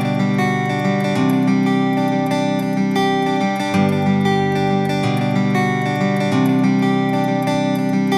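Background music led by acoustic guitar, with strummed chords changing every second or two.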